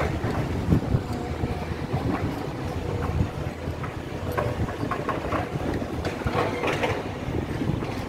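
Building-site noise: heavy machinery running steadily under scattered, irregular metal clanks and knocks.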